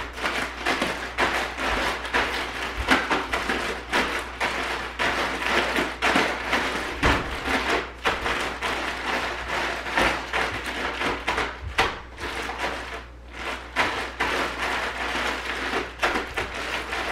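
A gallon zip-top plastic bag of seasoned cashews being shaken and kneaded by hand to mix in the spices. The plastic crinkles and the nuts rattle against each other, continuously, with a few brief pauses.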